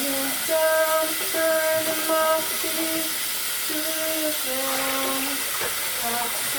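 A voice singing a slow tune in long, steady held notes, over a constant hiss.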